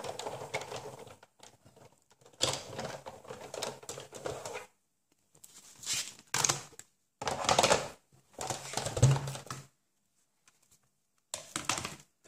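Hand-cranked die-cutting and embossing machine being turned to roll a plate-and-die sandwich through, a clicking, rumbling run over the first four or five seconds. After that come several short bursts of handling sounds as the plastic plates are pulled apart and set down.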